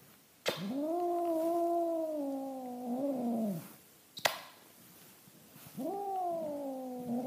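Domestic cat yowling: two long, drawn-out yowls, the first about three seconds and the second about two, each rising in pitch at the start and sliding down at the end. A single sharp click falls between them.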